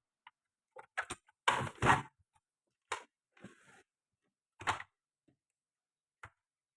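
Scattered clicks and knocks from handling tools and amplifier parts during a repair. The loudest is a pair of thuds about one and a half to two seconds in, with single sharp clicks before and after.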